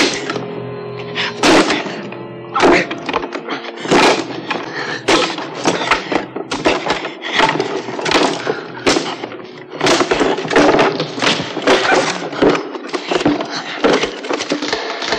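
Film soundtrack: music with held tones, then a rapid, irregular series of crashes and thuds that grows denser toward the end.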